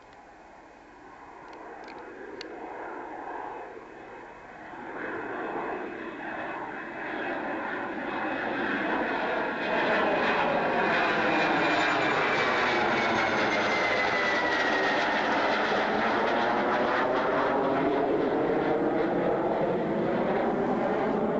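Cessna T-37 Tweet's twin J69 turbojets whining as the trainer climbs out. The sound grows steadily louder over the first half and then holds loud as the jet passes overhead. A high whine falls in pitch as it goes by, about midway.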